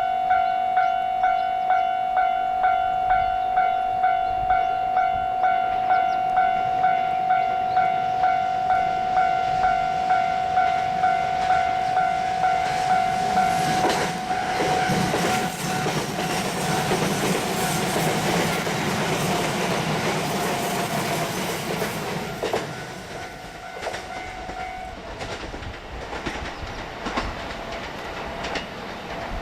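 Japanese level-crossing alarm ringing, a pitched ding repeating about twice a second. About halfway through, an electric multiple-unit train passes over the crossing for several seconds, its wheels clicking over the rail joints and covering the bell. The bell fades out shortly before the end.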